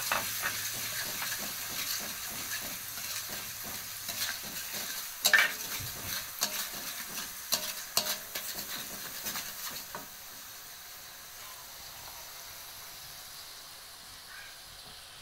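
Garlic and shallot paste sizzling in hot oil in a wok, with a metal spatula scraping and clacking against the pan as it is stirred. The stirring stops about two-thirds of the way through, leaving a quieter, steady sizzle.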